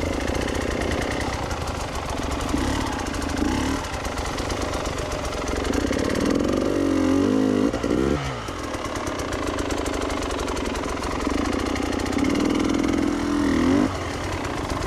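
Dirt bike engine running hard off-road, revving up in two long rising surges, about six and twelve seconds in, between steadier running.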